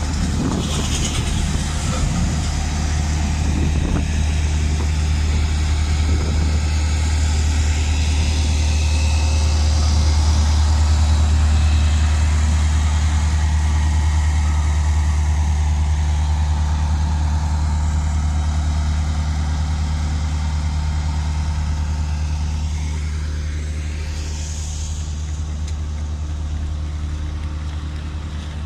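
Road roller's diesel engine running steadily with a deep, even hum; it grows louder toward the middle and fades over the last few seconds.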